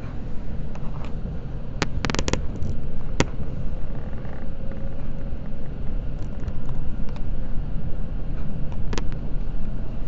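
Seibu Red Arrow limited express train running at speed, heard from inside the carriage as a steady low rumble, with a few sharp clicks: a cluster about two seconds in, one a second later, and another near the end.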